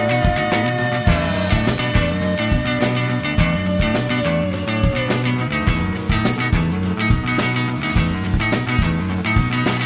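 Rock song played by a full band: a steady drum beat under bass and guitars, with a long held lead note that bends downward about five seconds in.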